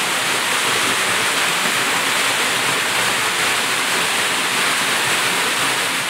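Waterfall and river water rushing in a steady, unbroken roar of falling and flowing water.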